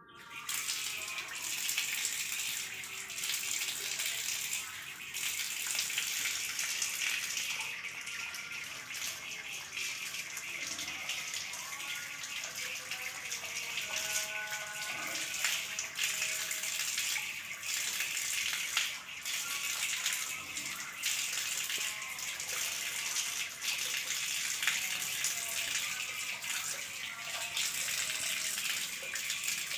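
Water running steadily from a wall tap and splashing onto hands and a tiled floor during wudu ablution washing, the flow starting just after the tap is opened at the beginning.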